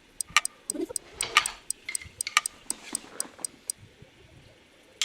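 A run of sharp, irregular clicks, several a second, that stops about three and a half seconds in, with a few softer noises between them.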